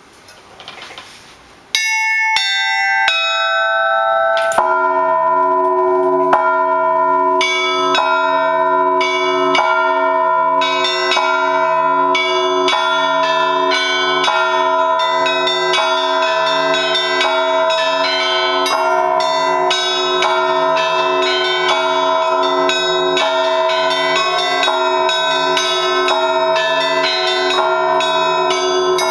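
Russian Orthodox church bells rung in a trezvon in three-four time by two bellringers. Small high bells start about two seconds in, the lower, larger bells join a couple of seconds later, and the full set then rings on in a steady, rhythmic peal of many overlapping tones.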